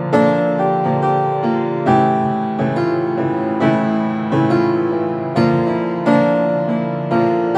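Acoustic upright piano played by hand. Strong chords are struck about every two seconds, with quicker notes between them, and the notes ring on.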